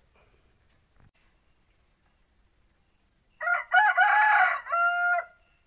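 A rooster crowing once, a call of about two seconds starting about three and a half seconds in. Before it, only a faint high chirring of insects.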